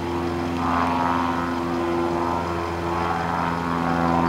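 Small propeller airplane flying past, its engine droning steadily with a slight shift in pitch.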